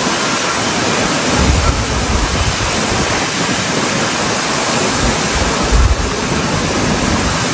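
Loud, steady rush of a violent rainstorm with gale-force wind, with gusts buffeting the microphone in low rumbles a few times.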